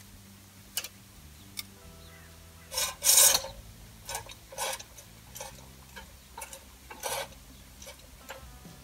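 Starter cord of a walk-behind tiller's recoil starter being worked and fed back in by hand, with a string of short rasping rubs, the loudest about three seconds in. The starter's recoil spring is broken, so the cord does not rewind by itself.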